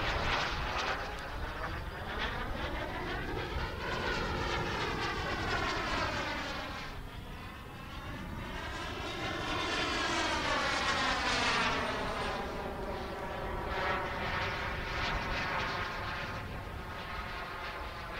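Model gas-turbine engine of a thrust-vectored RC sport jet in flight: a steady jet rush whose tone sweeps up and down twice as the jet flies past, dipping in level about seven seconds in.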